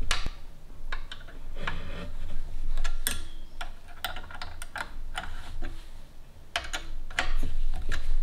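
Hex key turning the mounting bolts of a scooter's mechanical disc brake caliper, a run of irregular light metal clicks as the key is reseated and turned in the bolt heads.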